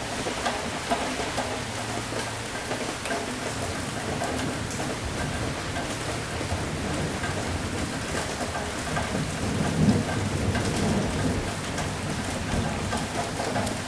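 Steady rain falling, with a low rumble of thunder that swells about two-thirds of the way through.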